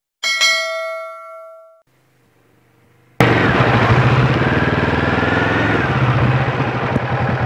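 A bright, bell-like ding sound effect rings and dies away over about two seconds. About three seconds in, the engine of a Kawasaki cruiser motorcycle comes in suddenly and loudly and runs on steadily as the bike rides up.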